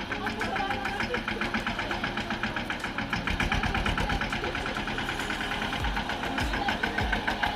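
An engine running steadily with an even, rapid knocking pulse of about eight or nine beats a second.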